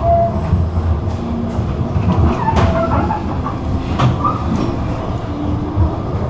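Tram running on the rails, heard from on board: a steady low rumble with a few sharp clicks and several short wheel squeals.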